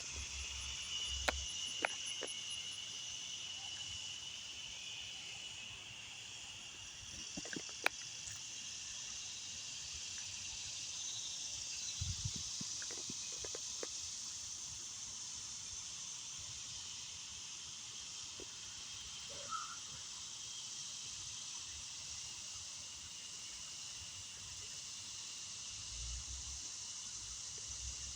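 Steady, high-pitched chorus of insects, with a few faint scattered clicks.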